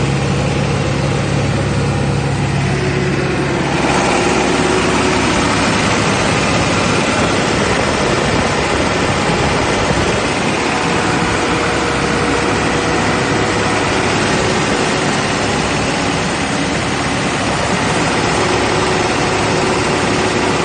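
John Deere 4045T four-cylinder turbocharged diesel in an Atlas Copco QA58 generator running steadily. About four seconds in, the sound gets brighter and more direct as the engine compartment comes into view.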